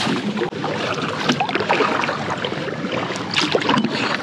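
Water splashing and sloshing around a kayak as it is paddled, a steady rush of noise with many small knocks and clicks.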